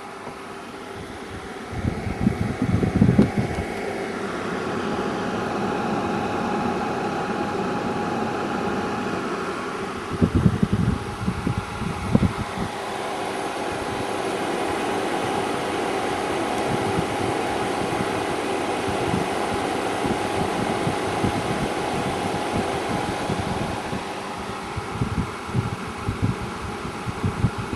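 EcoFlow Wave 2 portable air conditioner running: a steady fan hum with a constant tone. Low rumbling thumps break in about two seconds in, again around ten to twelve seconds, and near the end.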